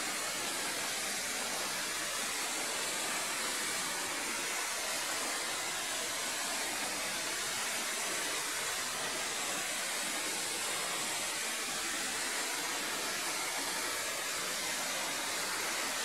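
Waterfall pouring down a steep rock face onto boulders: a steady, even rush of falling water.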